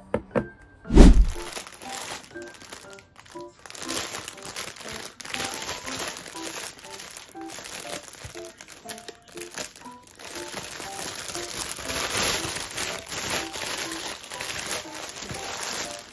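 Clear plastic produce bag crinkling and rustling as hands untie it and pull out a head of broccoli, over soft background music. A low thump about a second in.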